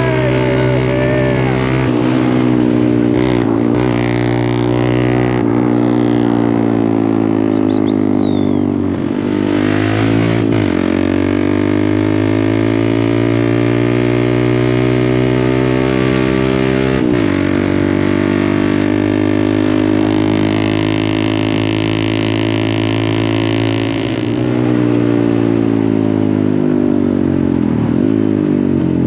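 Quad bike (ATV) engine driven hard at speed. The engine note climbs in pitch and drops back sharply several times as the rider accelerates and shifts.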